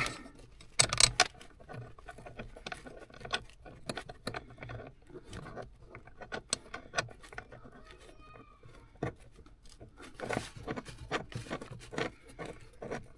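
Irregular small metallic clicks, taps and knocks as a bolt is worked through a VW T4 clutch repair bracket by hand, with a couple of louder knocks about a second in.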